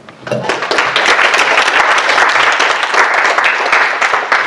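Audience applauding, beginning just after the start and dying away near the end.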